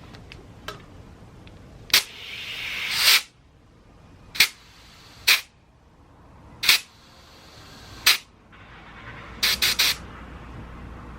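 Compressed air from a tire inflator chuck on the valve stem, going into a motorcycle tube-type tire in short hissing bursts: one longer hiss about two seconds in, then single short bursts every second or so and three quick ones near the end, topping the tire up toward 25 psi.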